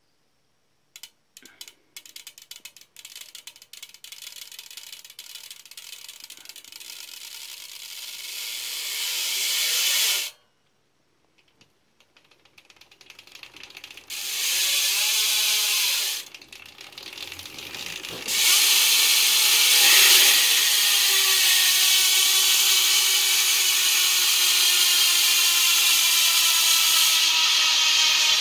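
Profile Elite BMX hub's freewheel ratchet clicking, the clicks speeding up into a loud buzz that stops suddenly about ten seconds in. After another short burst, a steady buzz runs through the second half, its pitch slowly falling as the hub coasts down.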